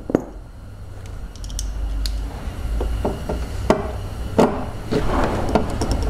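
Scattered clicks and knocks of a screwdriver with a Torx bit being fitted to and worked on a screw inside a car door, over a low rumble.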